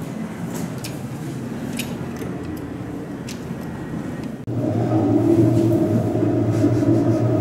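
Elevator cab running: a low steady hum with a few light clicks. About halfway through, a cut brings in a louder, steady mechanical drone with a low hum.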